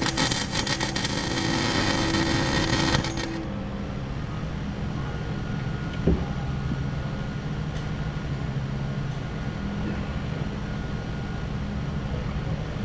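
Wire-feed (MIG) welder arc crackling and sizzling for about three and a half seconds as a nut is welded onto a snapped exhaust manifold bolt in an LS engine's head to extract it; the arc stops suddenly. A steady low hum continues afterwards, with one short knock about six seconds in.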